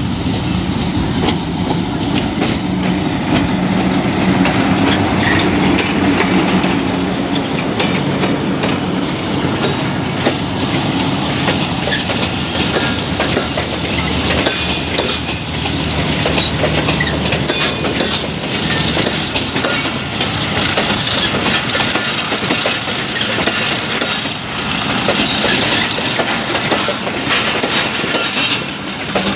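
Pakistan Railways PHA-20 diesel locomotive passing close at the head of a passenger train, its engine note strongest in the first several seconds. The coaches follow, their wheels knocking steadily over the rail joints.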